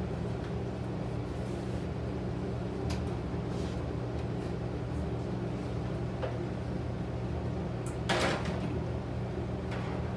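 Steady drone of a room air conditioner, with a few light kitchen knocks and a louder short clatter about eight seconds in.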